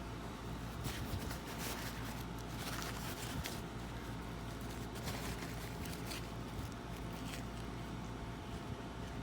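Scattered light clicks and scrapes of small metal lock parts being handled, over a steady low hum.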